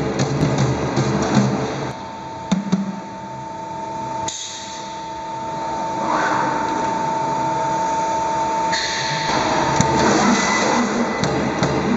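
CNC sheet-metal punching machine at work: a run of sharp punch strokes, then a steady mechanical whine with hiss while the sheet is positioned, then regular punch strokes again in the last two seconds.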